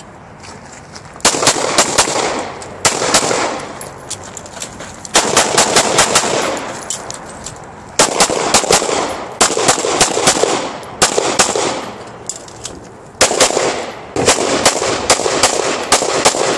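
Rapid pistol fire in a competition stage run: quick strings of several shots each, separated by pauses of a second or two.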